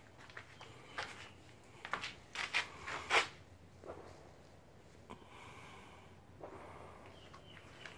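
Faint rustling and scattered light clicks from a hand-held camera being handled as it moves. The loudest cluster comes about two to three seconds in, and no engine is running.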